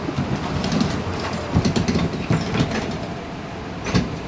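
A 1977–1980 UTDC CLRV streetcar heard from inside at the front while running along the track: a steady rumble with a run of irregular knocks and rattles through the first half, and one sharp click near the end.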